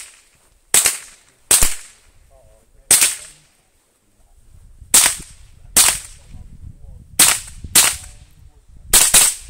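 Rifle shots from a .22 LR minirifle, nine sharp cracks at uneven spacing, some in quick pairs, each with a short echoing tail.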